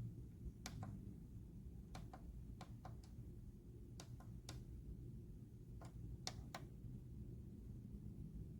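A series of sharp clicks, most in quick pairs, spread irregularly over a faint low hum.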